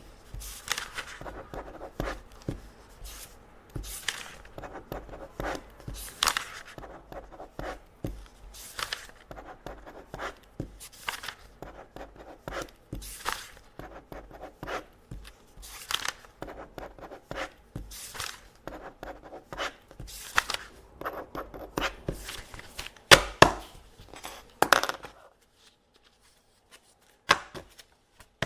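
Pen marking test papers: a steady run of quick scratching strokes and ticks on paper, with the paper rustling. The strokes stop about three-quarters of the way through, and one or two more come near the end.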